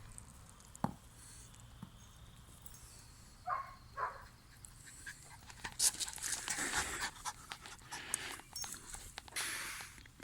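A dog panting, heavier in the second half, with scattered clicks and two short higher sounds about three and a half and four seconds in.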